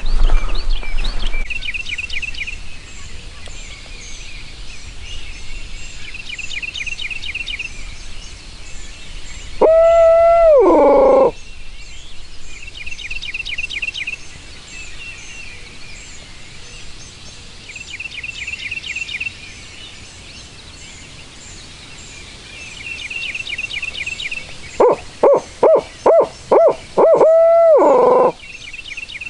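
Barred owl hooting: one long hoot that drops in pitch at its end, then near the end a quick run of about six short hoots closing on a long falling hoot, the 'who cooks for you-all' rhythm. A songbird's high trill repeats every few seconds underneath.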